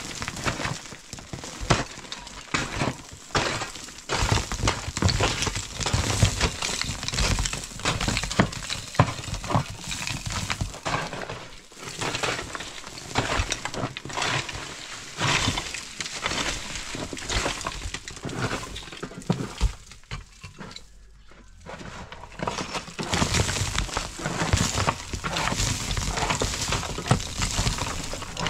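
Irregular cracks, snaps and clattering knocks, many in quick succession, with a short lull about twenty seconds in.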